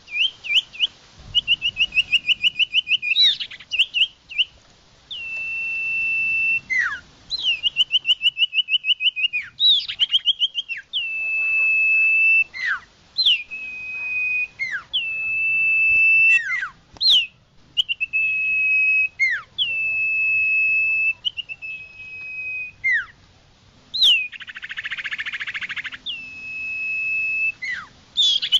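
Common iora (cipoh) song played as a bird-lure recording: clear, loud, high whistled notes, each held about a second and ending in a sharp downward slur, repeated every second or two and alternating with fast trilled phrases. A short harsh rasping note comes near the end.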